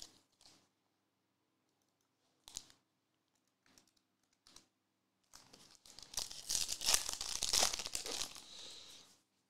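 Foil wrapper of a Panini Recon trading-card pack crinkling in the hands with a few short crackles, then torn open in one long crinkling rip that starts about five seconds in and stops just before the end.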